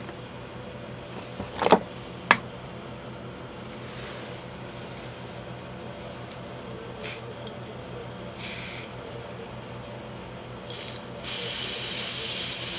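Butane refill can hissing into a small jet lighter's fill valve: a few short sprays, then a louder one of about two seconds near the end. Without the proper adapter tip the nozzle doesn't seal, so gas sprays out around it. Two sharp clicks come a couple of seconds in.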